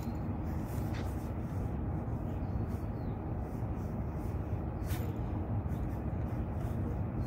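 Steady low rushing noise, with a couple of faint clicks about one second and five seconds in.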